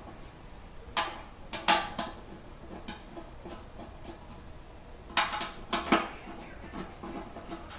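Metal clinks and clatter of small bolts and tools against the steel oil pan while the pan-rail bolts are started by hand, in two short clusters about a second in and around five to six seconds in, each clink ringing briefly.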